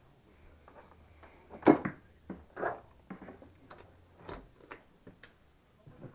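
Scattered knocks and clicks of handling at a workshop bench, with one sharper knock about a second and a half in, and the click of a plug being pushed into a wall socket.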